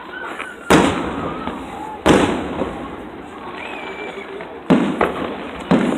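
Aerial fireworks shells bursting overhead: four sharp booms, each trailing off over a second or so, the first two about a second and a half apart and the last two about a second apart.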